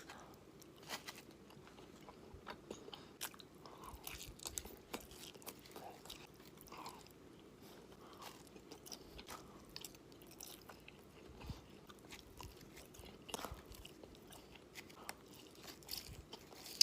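Close-up sounds of a person biting and chewing sauced, breaded boneless chicken wings: irregular soft crunches and wet mouth clicks.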